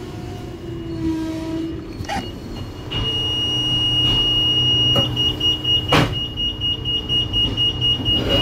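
Door-closing warning beeper at a train carriage's open sliding door: a steady high beep sets in about three seconds in and turns to rapid pulsing, about four beeps a second, from about five seconds in, over the carriage's low hum. A few sharp knocks come through, the loudest about six seconds in.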